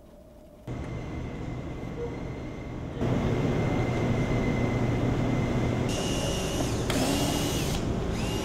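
Steady machine noise in a workshop, louder from about three seconds in. From about six seconds a handheld power tool whines up and drops back in three short bursts, each about a second long.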